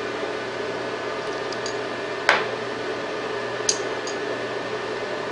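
Two sharp metallic clicks, about a second and a half apart, the first the louder, as small metalworking hand tools are handled on the bench, over a steady electrical hum.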